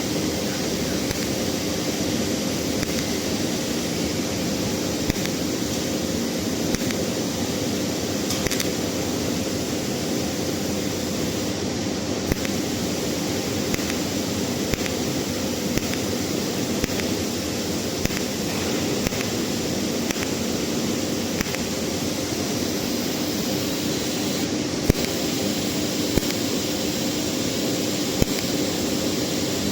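TIG welding arc running steadily: a continuous hiss with a low steady hum under it and scattered faint ticks.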